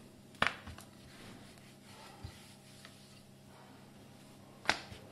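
Kitchen handling sounds while methi paratha dough is rolled out: two sharp knocks, one about half a second in and one near the end, with a softer tap between, over a faint steady hum.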